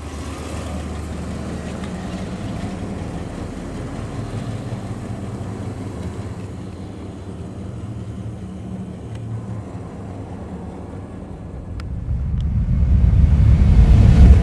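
A 1961 Cadillac Series 62's 390 cubic-inch V8 runs at low speed as the car drives slowly past. About twelve seconds in, a much louder low rumble swells up as the logo intro's sound effect begins.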